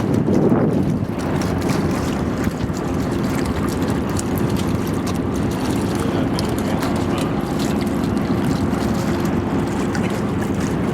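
Boat engine running steadily while under way, with wind buffeting the microphone.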